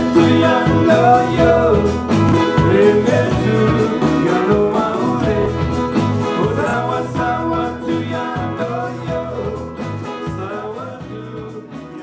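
Music with guitar, fading out steadily toward the end.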